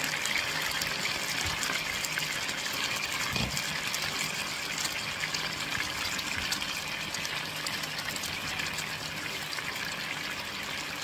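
Split whole chicken frying in a little oil in a skillet: a steady sizzle with dense fine crackling as it browns. A brief soft knock comes about three and a half seconds in.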